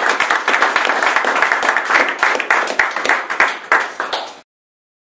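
Audience applauding, dense clapping that cuts off abruptly about four and a half seconds in.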